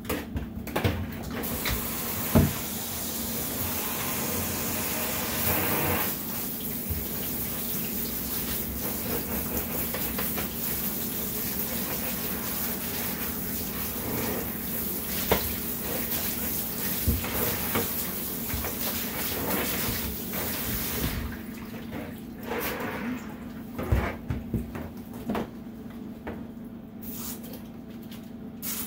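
Handheld shower sprayer running water over a small dog's coat in a bathtub, a steady hiss of spray. The water shuts off about 21 seconds in, leaving a few short knocks.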